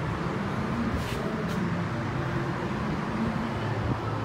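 Steady outdoor street noise with passing traffic and faint voices in the background.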